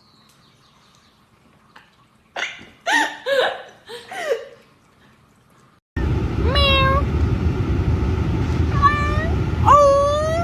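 Cat meowing: a few short meows about halfway through, then three drawn-out meows that rise and fall in pitch over a loud, steady low rumble.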